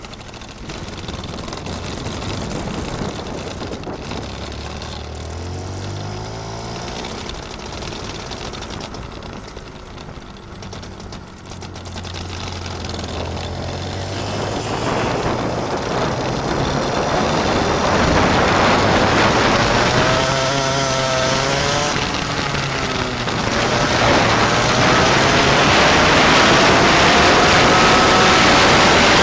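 Small go-kart engines running and revving, the engine note rising and falling as the karts accelerate and slow. The sound grows louder through the second half, with rising pitch sweeps near the end.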